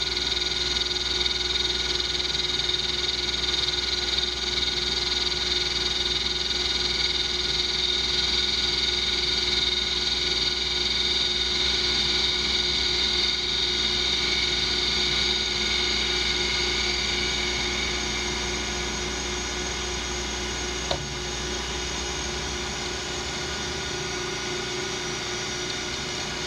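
Metal lathe running under power while its cutting tool takes a steady turning cut on a large round metal part held in the chuck: a steady hum with a high whine over it. The sound drops slightly about two-thirds of the way through, and there is a single click near the end.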